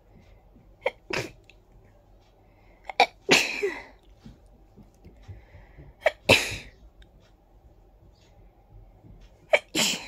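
A person sneezing in a fit brought on by a tickly nose: four sneezes roughly three seconds apart, each with a short sharp sound just before it.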